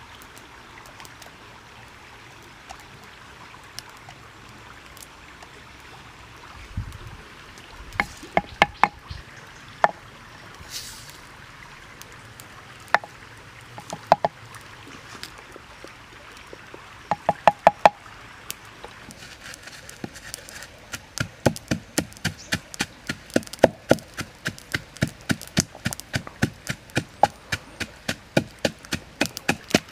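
Wooden pestle pounding garlic and red chillies in a wooden mortar: short runs of knocks at first, then from about twenty seconds in a steady beat of about two strikes a second.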